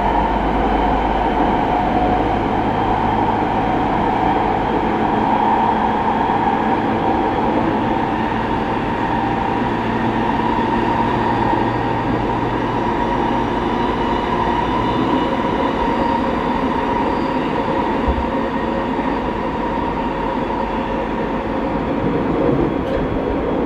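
Tokyo Waterfront Area Rapid Transit 70-000 series electric train heard from inside the passenger car, running steadily with a continuous rumble of wheels on rail and a steady hum.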